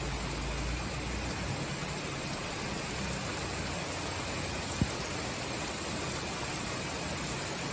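Heavy summer downpour falling steadily, an even hiss of rain. A low rumble fades out over the first second and a half, and a single sharp tap comes about five seconds in.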